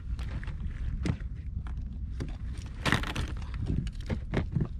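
Scattered knocks and rattles as a grouper is handled in a landing net on an inflatable boat, the loudest about three seconds in, over a steady low rumble.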